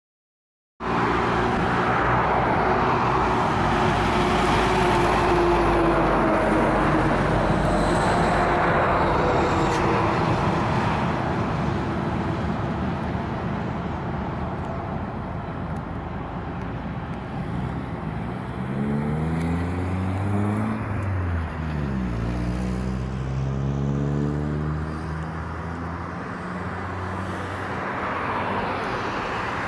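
Road traffic: motor vehicles passing by, one with an engine note falling in pitch over the first ten seconds, another going past around twenty seconds in.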